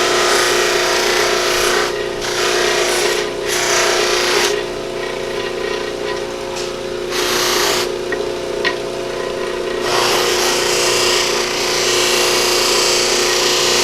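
Electric buffing wheel running with a steady motor hum, and a rushing hiss each time a piece of deer antler is pressed against the wheel charged with blue polishing compound. The hiss comes and goes several times, then holds steady from about ten seconds in.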